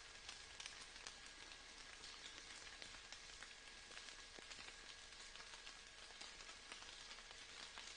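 Faint steady rain: an even hiss scattered with many small drop ticks, over a faint steady tone.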